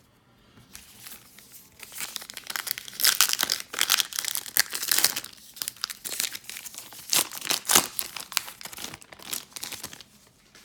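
Baseball card pack wrapper being crinkled and torn open by hand, a dense irregular crackling that swells and fades over several seconds.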